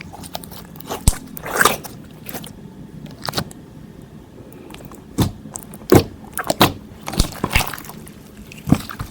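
Clear slime being worked by hand, with irregular wet squishes and sharp pops as air pockets burst, roughly one every second or so.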